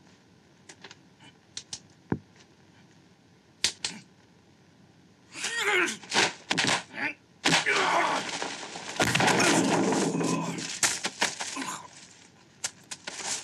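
Film fight sound: a few sharp taps and clicks, then about five seconds in a loud flurry of kick and punch impacts mixed with the fighters' shouts and grunts, which eases off near the end.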